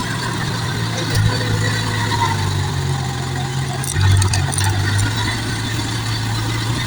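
Engine of a heavy machine, such as a dump truck or bulldozer, running steadily with a low hum. It gets louder briefly about four seconds in.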